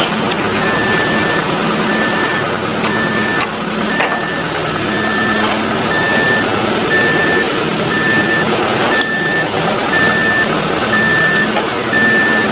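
A construction vehicle's reversing alarm beeping about once a second over the steady noise of its running engine.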